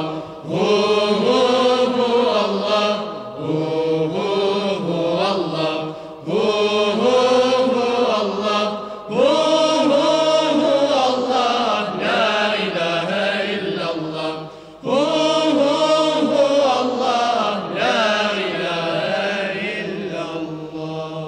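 Chanted Turkish Sufi ilahi: voices singing a repeated devotional refrain in phrases of a second or two, fading out near the end.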